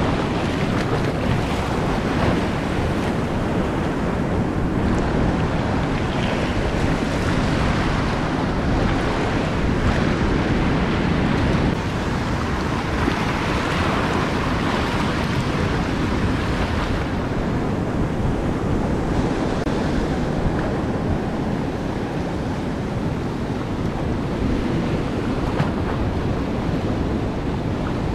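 Ocean surf breaking and washing over shoreline rocks in steady surges, with wind buffeting the microphone.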